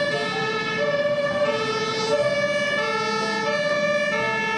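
Fire truck siren sounding a high-low two-tone pattern, alternating between two notes about every half second, with more than one siren overlapping.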